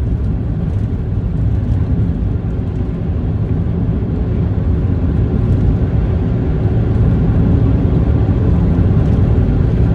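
Road and engine noise inside a moving vehicle's cabin: a steady low rumble that grows slightly louder over the last few seconds.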